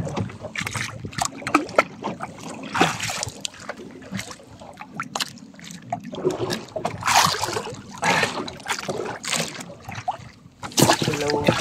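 Water sloshing and splashing against a small boat's hull as fish on a handline are pulled up to the surface and lifted aboard, with irregular short splashes.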